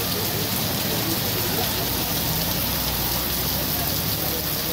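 Heavy rain falling steadily, an even, dense hiss of rain pouring down.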